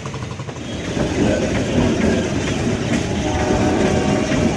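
Passenger train coaches rolling past close by, wheels running on the rails; the noise swells about a second in and then holds steady.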